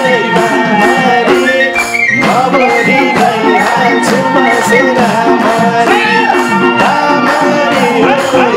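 Live Nepali folk dohori music: a melody over a steady percussion beat, playing on without a break.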